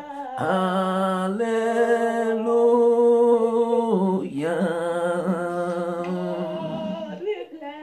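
A single voice singing slow, drawn-out worship notes with vibrato: two long held phrases, each about three to four seconds, with no clear words. The voice trails off near the end.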